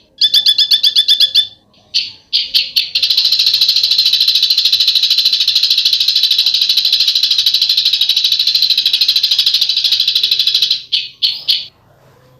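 A bird's harsh, rapid rattling 'besetan' call, the kind used as a masteran (song-training) recording for caged songbirds: a short pulsed series right at the start, a few brief bursts, then one long unbroken rattle from about three seconds in to nearly eleven, ending in a few short bursts.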